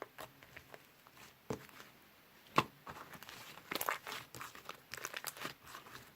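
Slime being squished and pressed by hand, making irregular crackling pops and clicks. There is one sharp pop about two and a half seconds in, and the pops come thicker in the second half.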